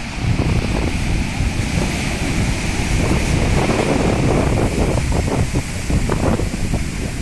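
Rough sea surf washing onto a beach in stormy weather, with strong wind buffeting the microphone in a heavy, gusting rumble.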